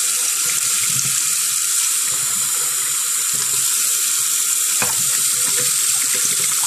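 Tap water running steadily into a sink and splashing over a plastic toner waste bin held under the stream as it is rinsed out, with a single light knock about five seconds in.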